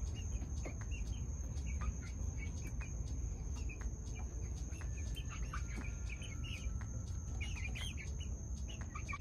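Young pullets chirping and clucking softly, many short scattered calls, as the flock comes out of the coop.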